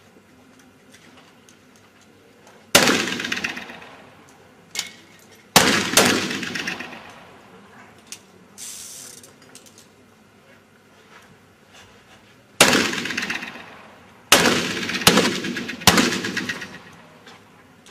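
Several black powder pistols firing: about seven loud shots at uneven intervals, some close together in pairs, each followed by a long echoing tail.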